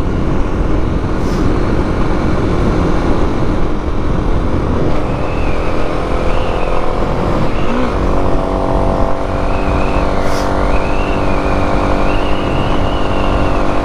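Kawasaki KLX250 motorcycle cruising at about 60 mph. Wind rushes over the microphone, and the single-cylinder engine runs steadily underneath, its note growing clearer about halfway through.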